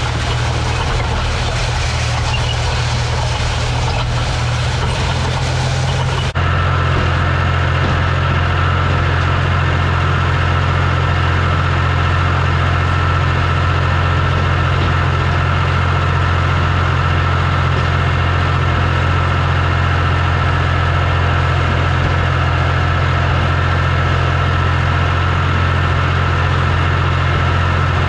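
Case International 385 small diesel tractor engine running steadily, its low even drone carrying on while it pulls a hay rake. About six seconds in the sound changes abruptly, and a thin steady whine sits above the engine afterwards.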